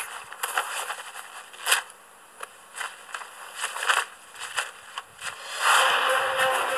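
Rustling, crinkling and clicking of a cloth superhero costume and mask being pulled onto a small animal, in irregular short bursts. A louder rushing noise comes in near the end.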